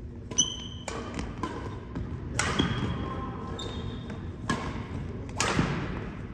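Badminton rackets striking a shuttlecock in a rally, a handful of sharp hits a second or two apart, ringing in a large hall, with rubber-soled shoes squeaking on the wooden court floor in between.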